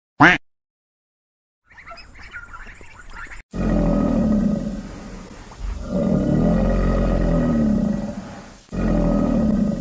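A caiman growling: long low growls in three bouts, starting about three and a half seconds in.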